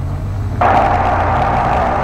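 Diamond DA40's Lycoming IO-360 four-cylinder engine held at about 2000 RPM for the pre-takeoff run-up, a steady drone heard in the cockpit. About half a second in, a louder rushing hiss starts abruptly on top of it and holds.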